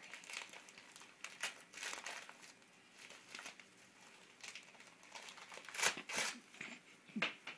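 Paper crinkling and tearing as a child unwraps a small wrapped gift by hand, in irregular crackles, the loudest about three-quarters of the way through.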